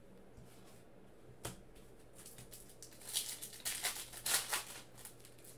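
A foil trading-card pack crinkling and rustling as it is torn open and the cards are pulled out, with a single tap about a second and a half in.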